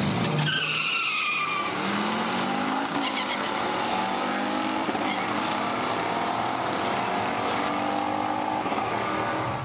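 HO-scale slot cars running laps on a plastic track: a steady electric motor whine and rattle whose pitch glides up and down as the cars speed up and slow down. The sound starts and stops abruptly.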